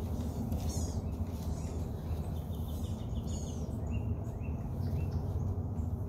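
Birds chirping and calling: short high notes, a quick run of repeated chirps a couple of seconds in, then a few more calls. Underneath is a steady low rumble of breeze on the microphone.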